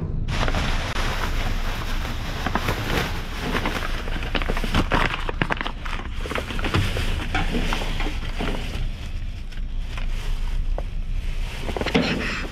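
Thin plastic trash bags crinkling and rustling, with cardboard boxes scraping, as they are handled: an irregular crackle with sharper snaps now and then.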